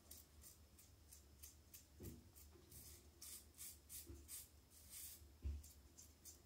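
Faint scraping of a double-edge safety razor (an aluminium Standard razor with a Gillette Rubie blade) cutting lathered stubble in short, quick strokes, about three a second. A soft low thud about five and a half seconds in.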